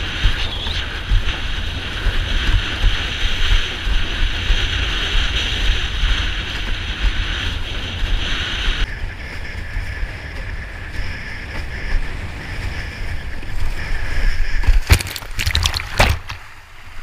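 Wind buffeting the microphone of a boom-mounted camera while a windsurf board skims over choppy water, with rushing, hissing water underneath. Near the end comes a short burst of sharp knocks and splashing as the sailor's back foot comes out of the footstrap and he loses his footing.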